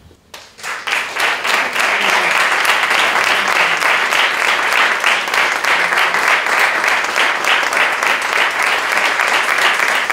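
Audience applauding, many hands clapping at once. It starts under a second in and stays steady.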